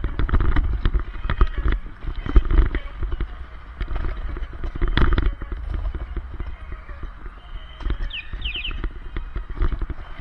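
Kick scooter rolling fast over a concrete sidewalk: the wheels and deck clatter and knock irregularly over cracks and joints, over a steady low rumble of wind on the helmet camera. A few short high chirps come about eight seconds in.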